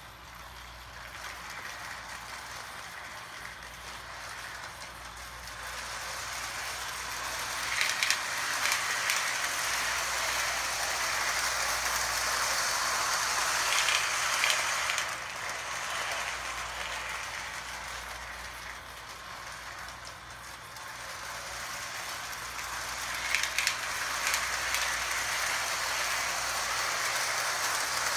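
Lionel Union Pacific toy train's electric motor and wheels whirring and clattering along three-rail tubular track, growing louder and softer as the train circles. There are sharp bursts of clicking several times as the wheels cross the track joints.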